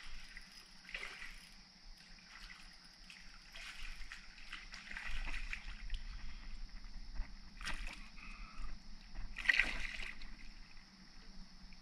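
Hooked smallmouth bass splashing and thrashing at the surface as it is played to the bank, in several irregular bursts of sloshing water. The loudest splash comes near the end, as a hand plunges in to grab the fish.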